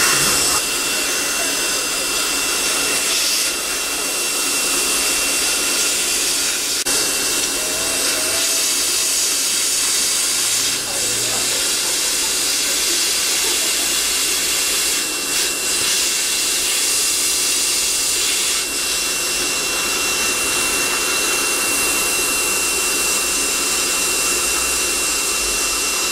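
Steady, loud hiss of a Waterlase dental laser handpiece and dental suction at work on a child's lip frenum, the air-water spray hissing over a steady high-pitched whistle.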